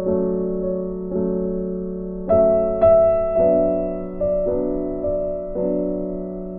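Background music: soft piano or electric piano chords, one struck about every second and left to fade.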